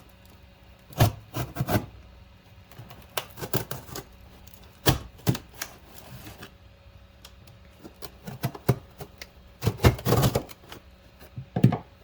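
A knife cutting down the side of a firework fountain's cardboard casing: sharp clicks and knocks in irregular clusters, with the loudest run about ten seconds in.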